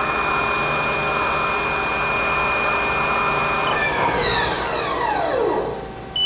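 Haas ST-30 CNC lathe spindle and 12-inch chuck running at about 1,500 RPM in the high gear range with a steady whine. About four seconds in, the spindle brakes to a stop and its whine falls steadily in pitch until it dies out.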